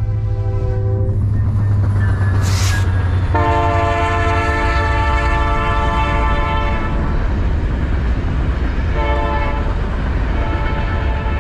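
Locomotive horn sounding a long held multi-note blast, then a second one a couple of seconds later, over a steady low rumble.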